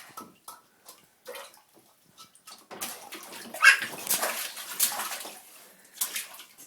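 A child splashing water with her hands: irregular splashes, sparse at first and then a busy run of loud splashes from about halfway through.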